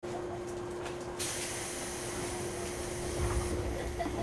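Inside a JR 103-series electric multiple unit: a steady hum, with a hiss that starts about a second in and stops about three and a half seconds in.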